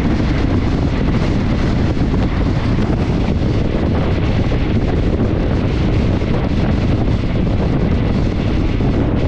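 Steady wind rush buffeting the microphone held out of a moving train's window, over the low rumble of the train running along the track.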